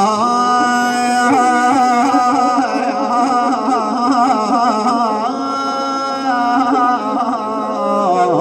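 A male eulogy reciter singing a long wordless 'aah' (aahat) in one held, ornamented line, with wavering turns in pitch, breaking off near the end.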